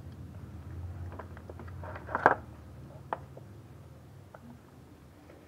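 Butchering a plucked chicken over a basin: small wet clicks and squelches of the carcass being handled and cut with a knife, with one sharp knock about two seconds in.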